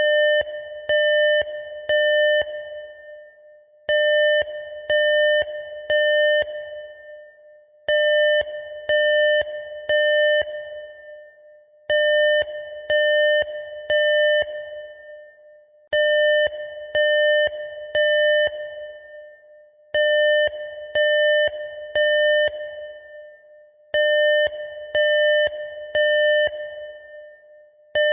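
Electronic alarm beeping in groups of three buzzy mid-pitched beeps, a new group every four seconds, each group trailing off in an echo. This on-off pattern is the temporal-three pattern used by fire and smoke alarms.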